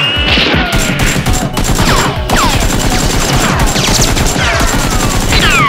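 Gunfire sound effects dubbed over a Nerf blaster battle: a dense stream of rapid shots, with repeated falling whistles like bullets whizzing past, about two a second.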